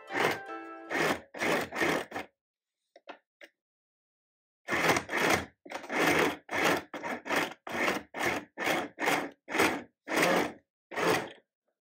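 Compact electric sewing machine stitching slowly through a fabric strip, each stitch heard separately at about three a second. It stops about two seconds in, then starts again for most of the rest.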